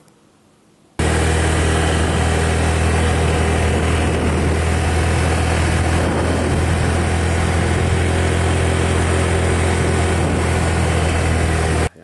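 Loud, steady running of a vehicle engine with a strong low hum under heavy noise. It cuts in suddenly about a second in and stops abruptly just before the end.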